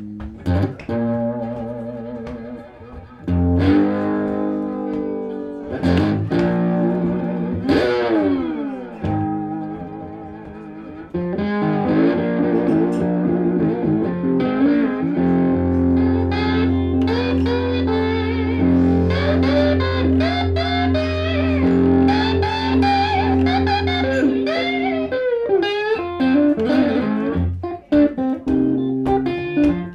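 Electric guitar playing an instrumental blues passage, with bent and sliding notes and a long downward slide about eight seconds in. From about fifteen seconds in, a wavering lead line plays over held low notes.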